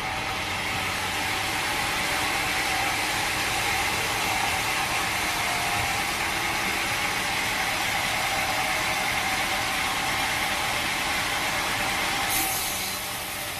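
Sawmill machinery running steadily with a loud, even noise, dropping away abruptly near the end.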